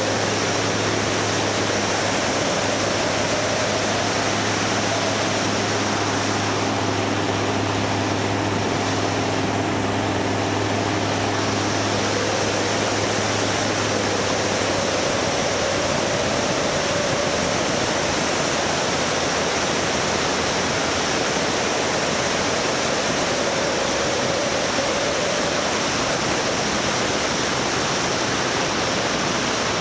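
Steady, loud rushing noise of wind over the microphone while moving through the snow. Beneath it runs a low engine hum that fades out about halfway through.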